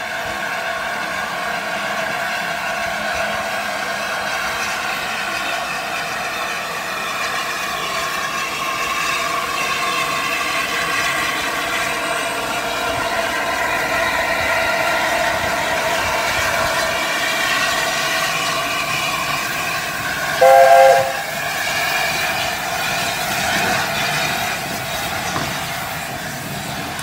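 LNER A4 Pacific steam locomotive 60009 moving slowly past with a steady hiss of steam. About twenty seconds in, a locomotive's steam whistle gives one short blast.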